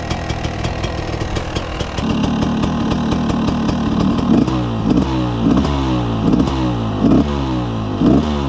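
2009 GasGas 300 two-stroke single-cylinder enduro engine running, first steadily, then from about four seconds in blipped with a quick series of short throttle revs, about two a second.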